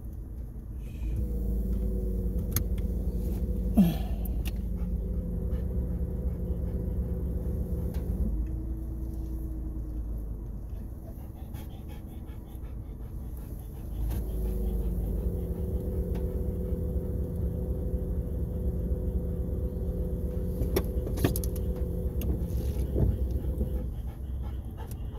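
Car engine hum and road rumble heard inside the cabin while driving. The hum picks up about a second in, eases off for a few seconds in the middle, and then returns. A golden retriever pants in the back seat.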